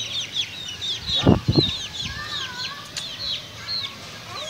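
Birds in a chicken yard: rapid high chirps, several a second, throughout. About a second in come two short thuds of flapping wings, and in the middle there is a wavering call.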